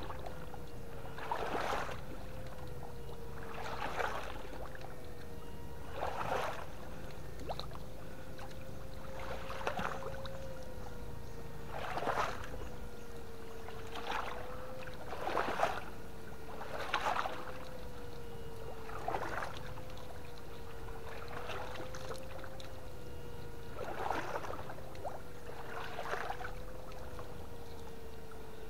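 A steady electric whine from a fish-shocker (PDC 8 FET) runs throughout, wavering slightly in pitch. Water splashes about every two seconds.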